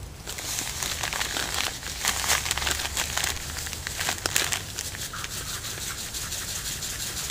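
Clear plastic bag crinkling in the hands as it is opened and tipped over a metal cup, a busy run of small crackles that is densest in the first half.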